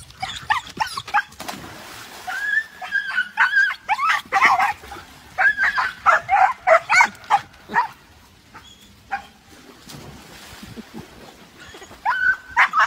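A dog barking, yipping and whining in quick runs of short calls, falling quieter for a few seconds before starting again near the end.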